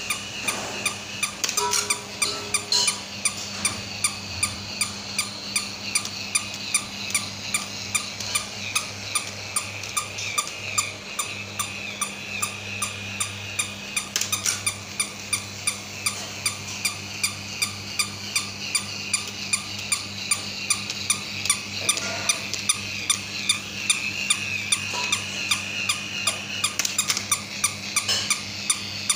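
Battery-operated toy dog's small electric motor running steadily, with a regular clicking from its walking mechanism, about two to three clicks a second.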